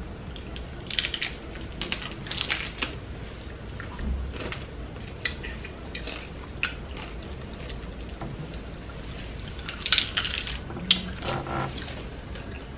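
Hard corn taco shells crunching as they are bitten and chewed, in irregular crisp crackles, the loudest cluster about ten seconds in.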